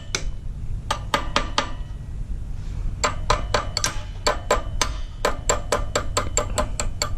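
Sharp metallic clicks and clinks from hand tools on the minibike's metal frame and engine bolts, each with a brief ring. A few are scattered early, then they come quickly and irregularly, about four a second, from about three seconds in.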